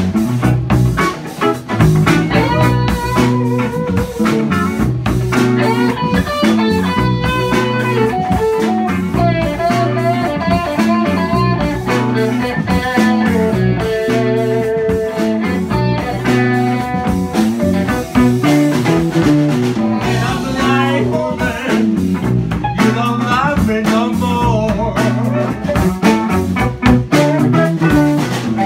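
Live band playing a blues number: lead guitar lines over bass and drums keeping a steady beat.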